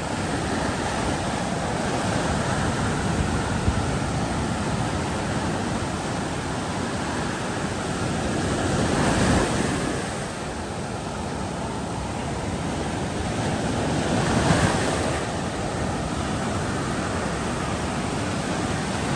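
Steady rush of wind and sea water, swelling twice, about nine seconds in and again near fourteen and a half seconds.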